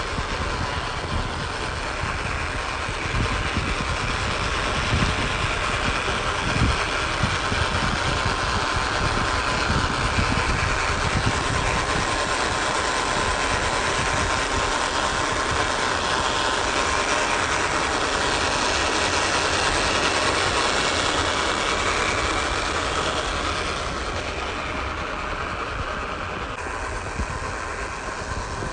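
Electric motor and gearbox of a WPL B16 1/16-scale RC truck whining steadily as it drives over dirt, with a low rumble underneath. It gets somewhat quieter near the end.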